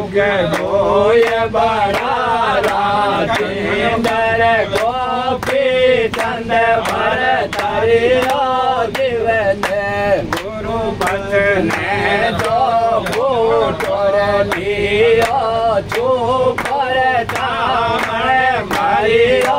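A man sings a sakhi solo, unaccompanied, in a long, wavering, chant-like melody. A sharp, regular beat a little under two a second keeps time.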